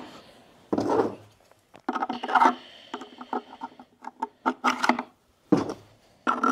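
Hard plastic leg rails being slid into their slots in a plastic gold-recovery bowl: a series of knocks, scrapes and clicks of plastic on plastic, with a run of quick clicks near the middle.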